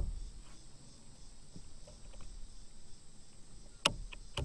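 Fishing gear knocking against a kayak as a rod in its side holder is handled: two sharp knocks about half a second apart near the end, with faint clicks between, over a faint steady high-pitched tone.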